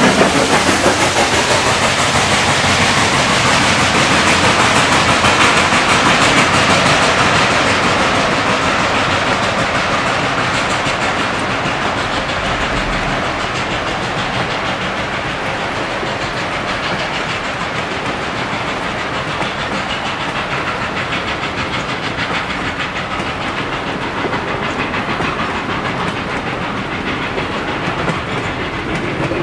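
Reading & Northern No. 2102, a 4-8-4 steam locomotive, giving off a dense, steady hiss and clatter of steam and machinery. The sound slowly grows quieter and duller through the second half.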